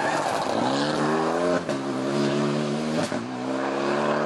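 Renault Mégane RS rally car's turbocharged four-cylinder engine accelerating hard out of a hairpin. The revs rise steadily, then drop at an upshift about one and a half seconds in and again about three seconds in, with a third rising pull near the end.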